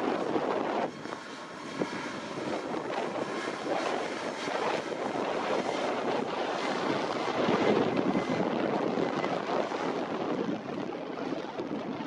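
Boeing 737 MAX 8's CFM LEAP-1B jet engines running at take-off power, a steady rushing noise with a faint whine, buffeted and distorted by wind on the microphone.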